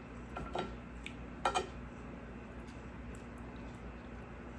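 Spoon clinking and scraping against a plate of coconut-milk-soaked buns: a few short taps about half a second in and a sharper pair about a second and a half in, over a steady low hum.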